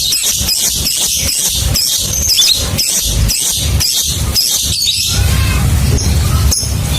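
Lovebird singing its long ngekek, a fast run of high, squeaky chattering notes about four a second. The run breaks off about five seconds in, leaving a steady hiss.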